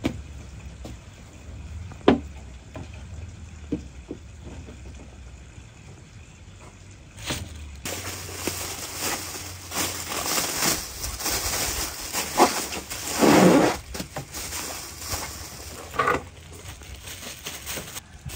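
Thin plastic bag rustling and crinkling as it is handled and twisted shut around a ball of dough, loudest about two-thirds of the way through. Before that there is quieter handling with a few soft knocks.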